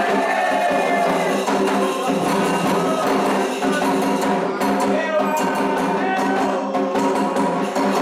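Candomblé toque for Ogum: atabaque drums and a struck bell keep a driving rhythm under group singing, with sharp percussive strokes crowding in during the second half.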